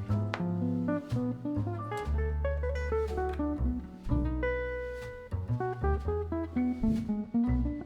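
Background music: a mellow instrumental with plucked guitar notes over a bass line.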